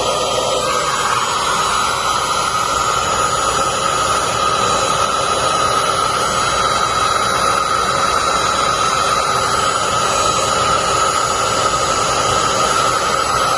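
Heat gun running steadily: a loud, even rush of blown air with a steady whine, heating a solder-seal heat-shrink wire connector until its solder melts.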